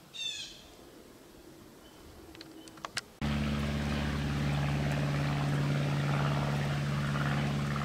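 An engine running steadily at an unchanging speed, cutting in abruptly about three seconds in. Before it there is a short high chirping call and a few faint clicks.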